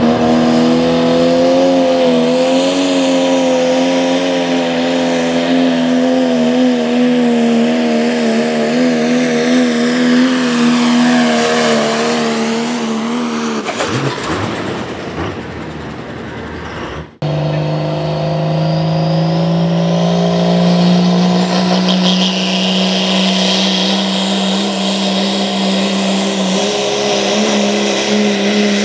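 Diesel pulling trucks running hard at high, held engine speed while pulling the sled. The first engine holds a steady note, then falls away about fourteen seconds in. After a sudden break, a second truck's engine runs at high speed with its note slowly rising.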